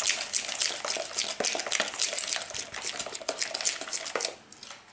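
A metal fork beating a runny flour-and-water sourdough starter batter in a plastic bowl, a fast run of clicking, scraping strokes, several a second, to aerate it. The strokes tail off about four seconds in.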